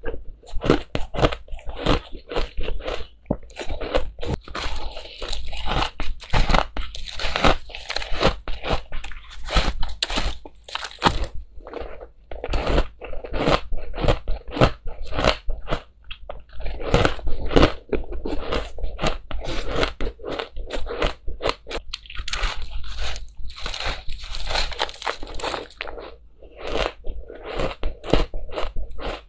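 Crushed ice being bitten and chewed close to a clip-on microphone: a rapid, continuous run of crisp crunches, with a few short lulls.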